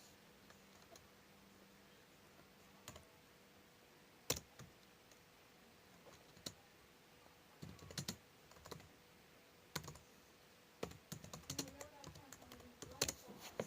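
Scattered light clicks and taps against quiet room tone: a few isolated ones at first, then clustering into quick runs in the second half.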